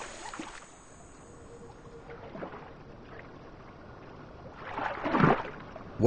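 River water lapping and sloshing quietly, swelling into a louder splashing rush of water near the end.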